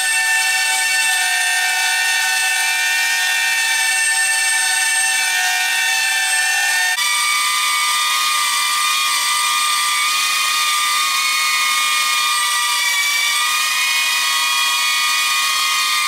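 DJI Avata drone hovering, its propellers and motors giving a steady multi-tone whine. About seven seconds in it cuts to the drone on a different propeller set, and the main whine is higher in pitch.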